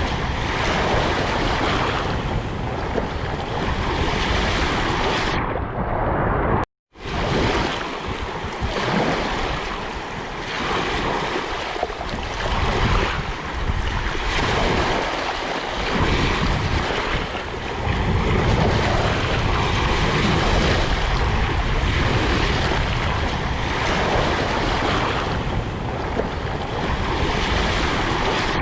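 Steady, dense rushing noise of a rainforest ambience recording, swelling and easing a little, with a brief cut to silence about seven seconds in.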